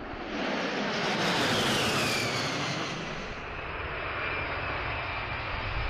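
A-10 Thunderbolt II jet passing, its turbofan engines giving a rushing noise with a high whine that falls in pitch about two seconds in. It is loudest around then and eases slightly afterwards.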